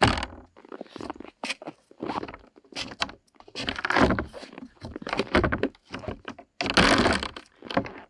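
Wooden plank doors knocking and thudding over and over as they are pulled and pushed by their handles, with longer rubbing scrapes about four seconds and seven seconds in. The door boards have swelled and become wider.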